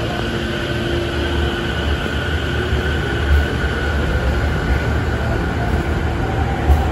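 Sotetsu 10000-series electric commuter train pulling out of the platform, a steady rumble that grows heavier as the cars pass, with a short knock near the end.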